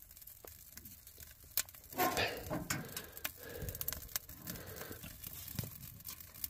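Freshly lit twig kindling crackling in a small wood stove's open firebox, with scattered sharp pops. About two seconds in there is a louder burst of rustling and snapping as a hand pushes twigs into the fire.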